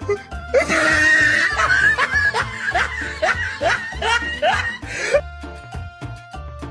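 Comic background music with a steady low beat, and laughter over it: a run of about ten short rising 'ha' syllables that stops about five seconds in, after which plucked musical notes carry on.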